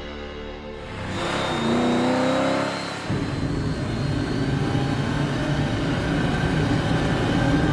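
Cartoon Batmobile engine sound effect: it revs up with a rising pitch a little after a second in, then runs steadily.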